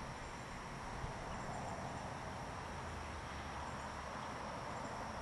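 Insects trilling steadily, a continuous high hum of outdoor ambience over a low rumble.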